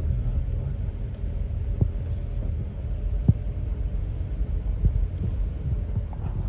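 Steady low outdoor rumble with a few short soft knocks, one about two seconds in and another about halfway.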